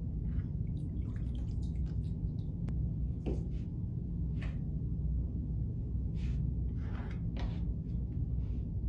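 Steady low room hum with scattered soft wet squishing and splashing as wet hands pull a clay mug handle and dip into a bucket of water, several of them close together about six to seven and a half seconds in.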